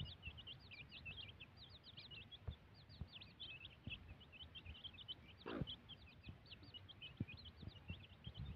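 Domestic chicks peeping continuously in short, high chirps, several a second, as a brood feeds, with faint soft taps of beaks pecking rice grains off the ground.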